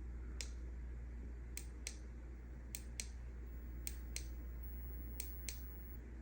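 Small sharp clicks of the flashlight's push button being pressed, about nine in all: a single click, then four quick pairs a fraction of a second apart. A steady low hum lies underneath.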